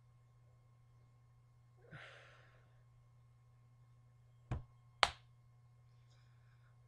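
A man's long exasperated sigh about two seconds in, then two short sharp knocks about half a second apart as his hand comes up and slaps onto his head, over a low steady electrical hum.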